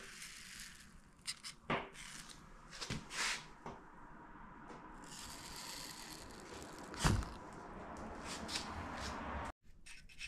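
Workshop handling noises: scattered clicks and scrapes of slip-joint pliers and cast metal pieces being moved about on a workbench, with one louder thump about seven seconds in. The sound cuts out briefly near the end.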